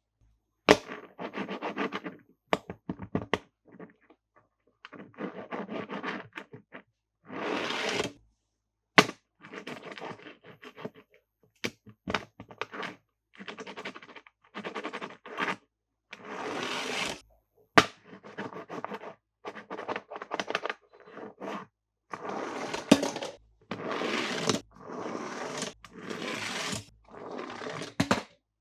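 Die-cast toy cars being handled and pushed over plastic: a series of short scraping, rolling runs, each half a second to a second and a half long, with sharp clicks between them.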